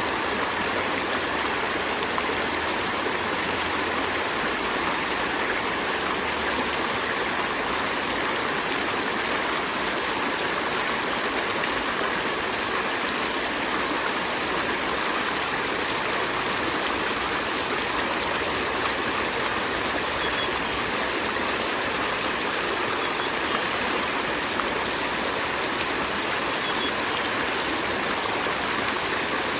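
River stream flowing steadily: an even rush of running water with no change throughout.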